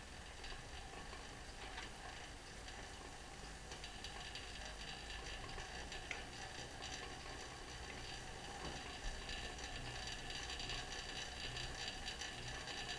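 BH SB2 chain-drive spinning bike being pedalled: the chain and flywheel running with a fine, fast ticking whir, growing a little louder about four seconds in.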